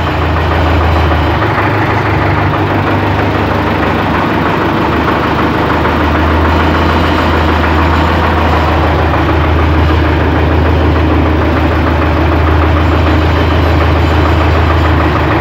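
MTZ-82 tractor's four-cylinder diesel engine idling steadily shortly after a cold start, heard from the driver's seat.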